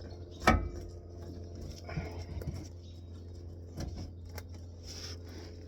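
A few knocks and clinks of a rear shock absorber being handled and wiggled toward its mounts, the sharpest knock about half a second in, over a steady low hum.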